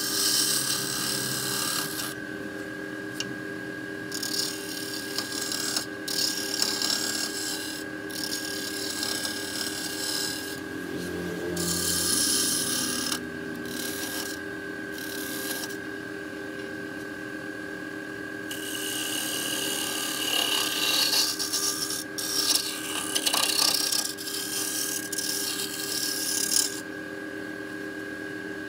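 Wood lathe running with a steady motor whine while a hand-held turning tool cuts the spinning glued-up wooden vase blank, the scraping cuts coming in stretches of a few seconds with short pauses between. The cutting stops near the end, leaving only the lathe's hum.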